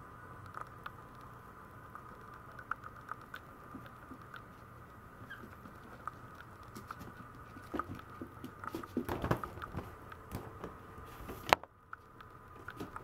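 Maltese puppies' claws pattering and ticking on a vinyl floor as they move about, a steady faint hum underneath. The taps come thicker about nine seconds in, with one sharp click near the end.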